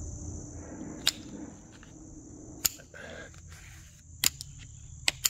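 Steady high-pitched insect chorus, with four sharp clicks spread through it, the kind made when working the vinyl trim.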